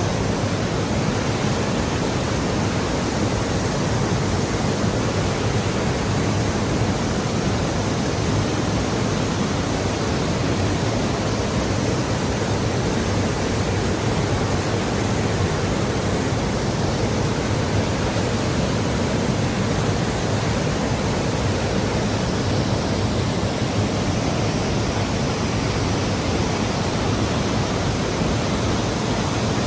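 Waterfall on a mountain valley stream, a large volume of water pouring and rushing steadily without a break.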